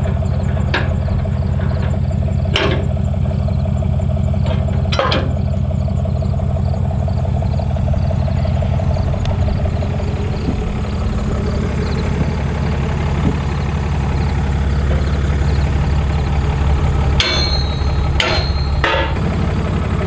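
Pickup truck engine idling steadily while a flatbed trailer is hitched to its ball hitch. A few sharp knocks come through: two in the first five seconds and a cluster near the end.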